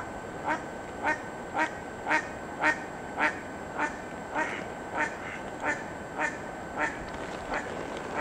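A duck quacking in a steady series of about a dozen calls, nearly two a second, growing weaker toward the end.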